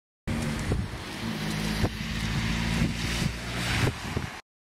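A motor vehicle's engine running steadily, with wind on the microphone and a few sharp knocks; the sound starts abruptly just after the start and cuts off suddenly near the end.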